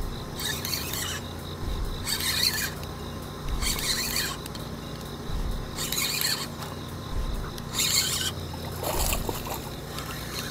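Spinning reel being cranked in short bursts, roughly every one and a half to two seconds, as a hooked sea bass is reeled in.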